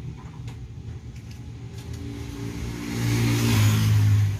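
A motor vehicle passing on the road, its engine hum and road noise swelling to their loudest about three seconds in.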